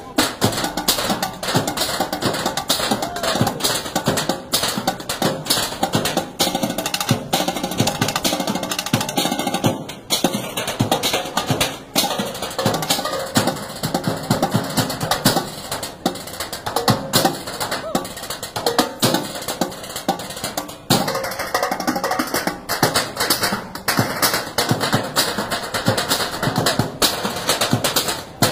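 Drumsticks beating rapid rhythms on galvanized steel trash cans, several performers playing together, with short breaks about ten, twelve and twenty-one seconds in.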